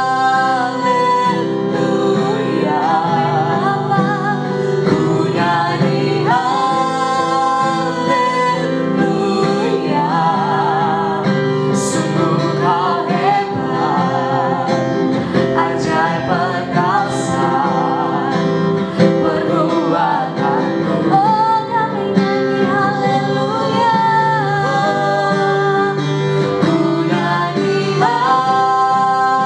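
A praise song: a voice singing a melody over guitar accompaniment.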